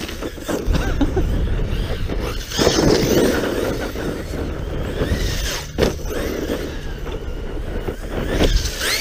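Arrma Talion 6S RC truggy's brushless motor whining up and down in pitch as it is throttled on and off across loose dirt, over a low rumble and gritty tyre noise. There is a sharp knock about six seconds in.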